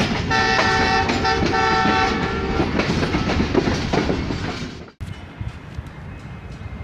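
Multi-tone diesel locomotive horn sounding a chord in about three short blasts, over the rumble and rail clatter of a train running past. The train sound cuts off suddenly about five seconds in, leaving a much quieter outdoor background with faint clicks.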